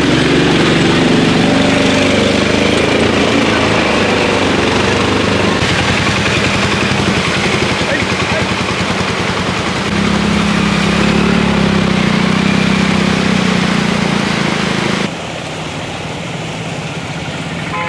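Auto-rickshaw engines running as the three-wheelers push through flood water, with water splashing and rushing around the wheels. The engine hum grows stronger about ten seconds in, and the whole sound drops suddenly about fifteen seconds in.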